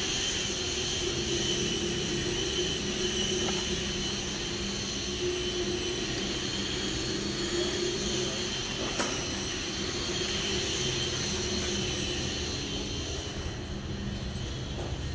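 Electric floor grinding machine running with a steady whine, fading somewhat near the end.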